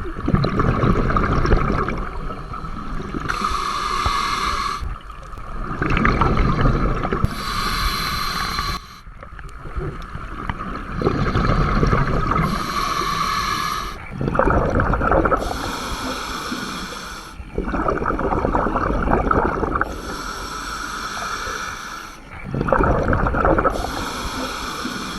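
A scuba diver breathing through a regulator underwater, in slow alternating breaths, about six in all. Each inhale is a hiss through the demand valve, and each exhale is a low rumbling gurgle of bubbles.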